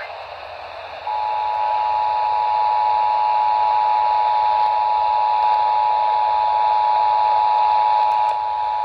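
Emergency Alert System two-tone attention signal played over a radio receiver: static hiss, then about a second in the two steady tones start together and hold unbroken.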